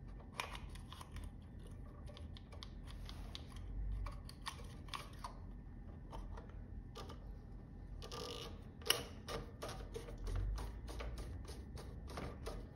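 Light, irregular clicking and rattling of metal snowmobile-carburetor parts being handled as the throttle slide is set in and the top cap is turned on by hand, with one sharper click about nine seconds in.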